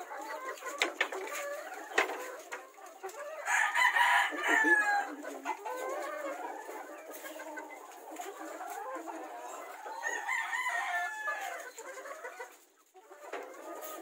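Gamefowl chickens calling in their pens: a rooster crows about four seconds in and again near ten seconds, with clucking between. A couple of light knocks about one and two seconds in.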